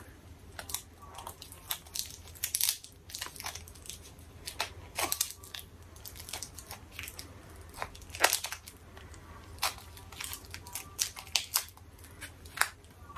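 Plastic memory-card packaging crinkling and crackling in the hands as the card is worked free, in irregular crackles and sharp clicks.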